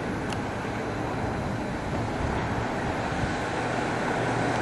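Steady, low engine rumble of a small aircraft flying overhead, slowly growing louder as it approaches.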